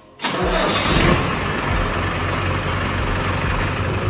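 Mahindra Arjun Novo 655 DI tractor's diesel engine cranking and starting about a quarter second in, then running steadily.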